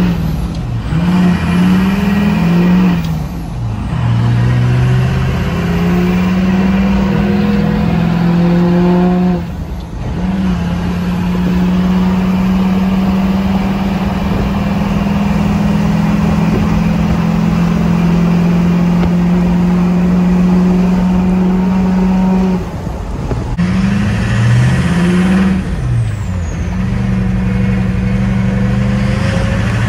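LLY Duramax 6.6-litre V8 turbodiesel heard from inside the cab, pulling through the gears of its six-speed manual: the engine note climbs, drops briefly at each shift and climbs again. Midway it holds a steady pitch for about twelve seconds before two more pulls near the end.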